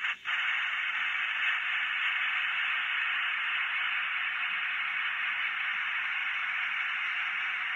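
Steady radio static hiss in a pause of an Apollo 11 Lunar Module mission communications recording, played back by the diorama's small MP3 sound module.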